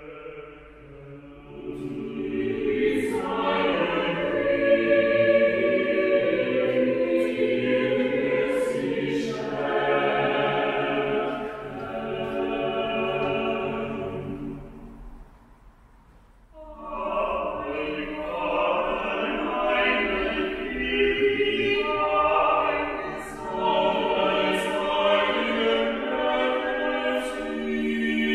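Mixed choir of men and women singing, breaking off for a moment about halfway through and then starting again.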